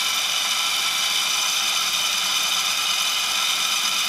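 Fishon Spooler Pro's variable-speed electric motor running steadily as it strips old fishing line off a baitcaster spool, a constant whir with a high whine.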